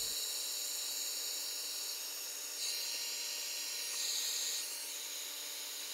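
Electric heat gun blowing steadily, a constant hiss that swells slightly twice, as it shrinks heat-shrink butt connectors on spliced wires.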